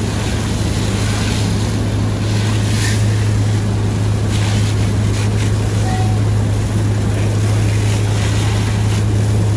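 Fire engine's diesel engine running steadily while it pumps water to a hose line: a loud, even low drone with a steady hiss over it.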